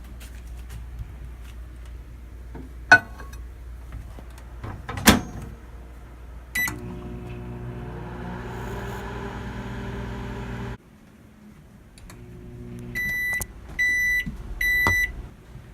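Microwave oven: two sharp knocks, then a single keypad beep, and the oven starts running with a steady hum. About four seconds later the hum cuts off, followed by three evenly spaced beeps, the end-of-cycle signal.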